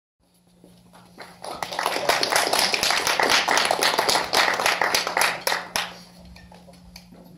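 Audience applause from a small crowd, building about a second in and dying away about six seconds in.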